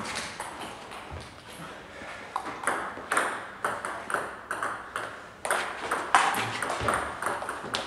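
Table tennis ball clicking off the bats and the table, a few sharp clicks a second, picking up into a quick rally in the second half.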